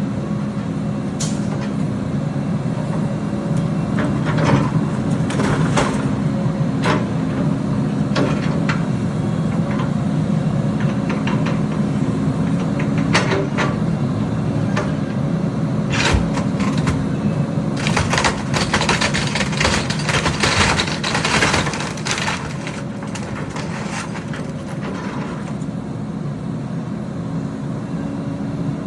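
Heavy diesel engine of construction machinery running steadily, with scattered knocks and a few seconds of dense clattering and scraping in the second half.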